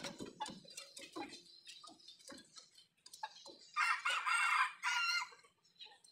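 A rooster crowing once, about four seconds in, in two parts with a short break near the end. Before it there are soft chicken clucks and small scratching knocks.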